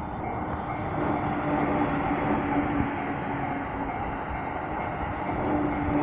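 JR Tokaido Line local electric train running past the level crossing: a steady rush of wheel and running noise with a low steady tone in it, growing louder about a second in. The crossing alarm's pulsing tones are heard at the very start, then buried under the train.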